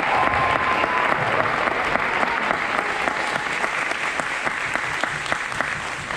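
Audience applauding, many hands clapping at once, the clapping slowly dying away toward the end.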